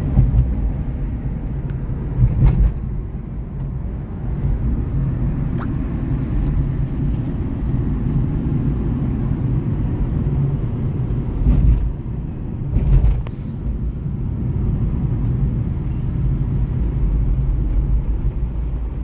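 Steady low rumble of road and engine noise inside a moving car, with a few brief louder swells, about two and a half seconds in and twice near the middle.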